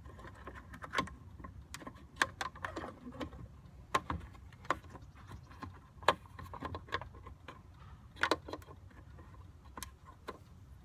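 Irregular sharp plastic clicks and taps as a turn-signal bulb socket is lined up and fitted back into a Jeep Patriot's tail light housing.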